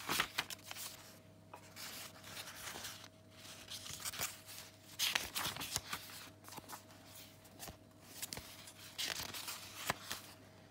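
Paper and card pages of a handmade junk journal being turned and handled, rustling and flapping in irregular bursts. A faint steady hum runs underneath.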